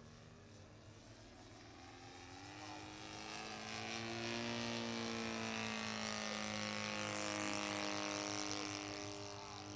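Saito FG-61TS 61cc four-stroke gas twin engine of a radio-controlled XCub model airplane in flight, running steadily. Its pitch rises about two and a half seconds in, and it grows louder, staying loudest through the middle of the passage.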